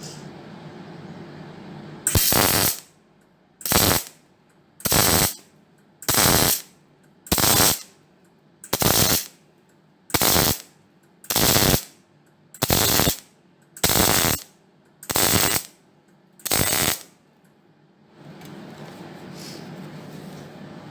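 MIG welder laying a row of short tack or stitch welds: about a dozen crackling half-second bursts, evenly spaced a little over a second apart. A low steady hum sits under the start and the end.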